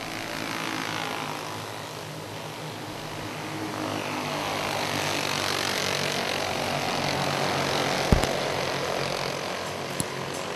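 A field of racing champ karts running around the oval, many engines at full throttle blending into one drone that grows louder as the pack comes past and then eases off. A short knock about eight seconds in.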